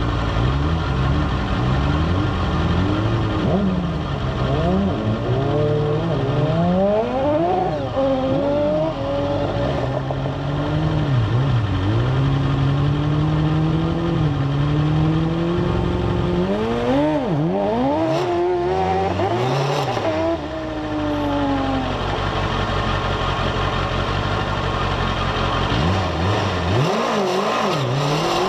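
Race-car engines idling and being blipped in the start queue, the pitch repeatedly rising and falling, with a stretch of sharp revving in the middle. Near the end the engine note climbs steadily as the car pulls away.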